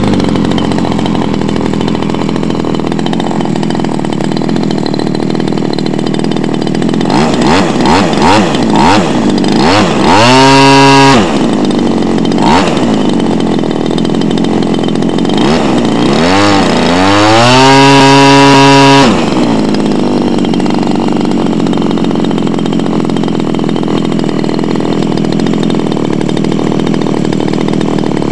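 GF26I two-stroke gasoline model-aircraft engine running and spinning its propeller. It idles, with a few quick throttle blips about seven seconds in, then revs up sharply twice, around ten seconds and again from about sixteen to nineteen seconds, each time dropping back to a steady idle.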